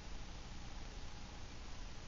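Faint, steady hiss of room tone, with no distinct sounds.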